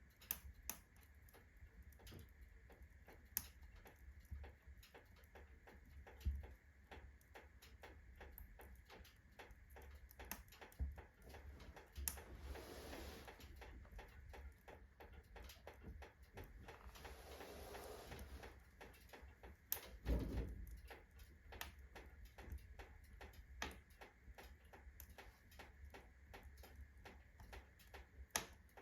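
Iron fireplace stove ticking and knocking irregularly as its metal expands from fast heating after kindling catches, with a few louder knocks, the loudest about two-thirds of the way through. A wood fire crackles and briefly hisses twice in the middle.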